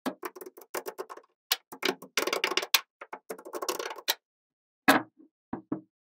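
Small neodymium magnet balls clicking and clattering against one another as sheets of them are pressed and stood up: a dense run of clicks for about four seconds, then one sharp click and a few lighter ones.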